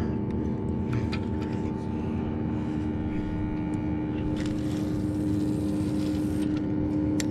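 A steady motor drone holding an even pitch, with a few faint clicks over it.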